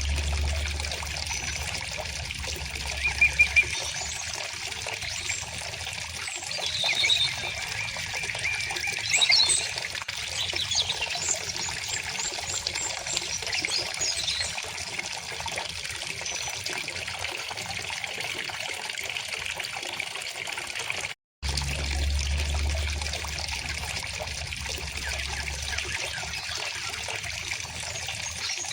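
A shallow river or stream flowing steadily, with birds chirping and singing in short phrases over it. The sound cuts out for a split second about two-thirds of the way through.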